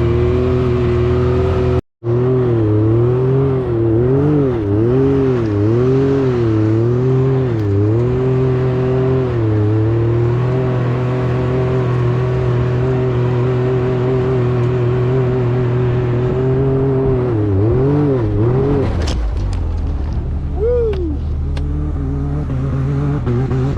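Can-Am Maverick X3 side-by-side engine running under load through snow, its revs rising and falling repeatedly for the first several seconds, then holding steady before dropping to a lower, quieter note near the end. The sound cuts out for an instant about two seconds in.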